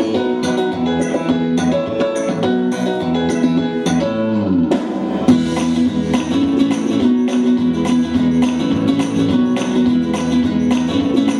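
Instrumental background music led by guitar, strummed in a steady rhythm of about two to three strokes a second, with a short falling glide about four and a half seconds in.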